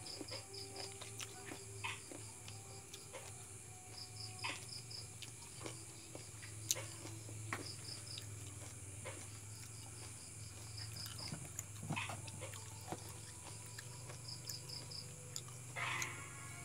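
Night insects chirping: short chirps of about five quick high pulses recur every three to four seconds over a steady high-pitched insect hum. Faint scattered clicks and a brief rustle near the end.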